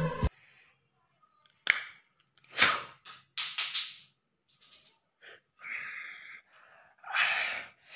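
A man's breathy sighs, huffs and mouth noises, short bursts with gaps between them and no clear words. A film song cuts off just at the start.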